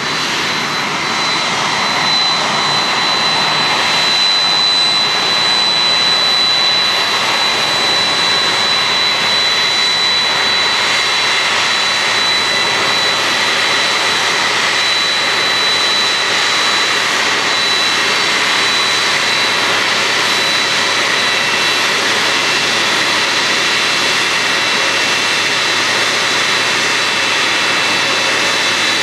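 Boeing 767-300ER's twin General Electric CF6-80C2 turbofans running at low taxi power as the airliner taxis close by: a steady jet rush with a thin high whine over it, swelling slightly in the first couple of seconds.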